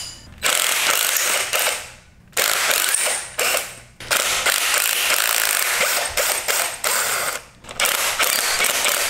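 Black+Decker cordless drill/driver running in about five bursts, the longest about three seconds, backing bolts out of an engine's front cover.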